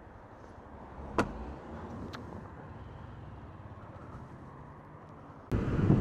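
Motorcycle engine idling quietly in traffic, with two sharp clicks about one and two seconds in. About five and a half seconds in, loud wind rush and engine noise from riding at speed start abruptly.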